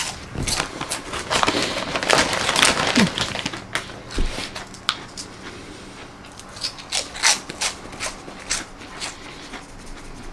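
Pork rinds being chewed: a run of irregular, crisp crunches, thickest in the first three seconds.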